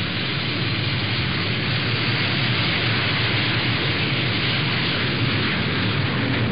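Steady aircraft engine noise: an even, loud hiss over a low rumble, holding level without rising or falling.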